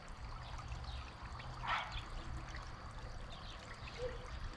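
Small mountain creek trickling and flowing steadily, with a short burst of noise about a second and a half in.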